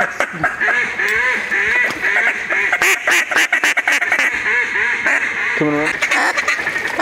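Hand-blown mallard duck calls: a quick run of short quacks and chatter, several notes a second, with a louder drawn-out note near the end.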